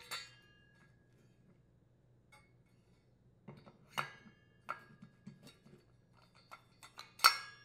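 Steel Mantis tiller tines clinking and ringing as the tine assemblies are handled and slid onto the transmission's tine drive shaft. A clink comes right at the start, a run of small taps and clinks follows from about three and a half seconds in, and the loudest ringing clink comes near the end.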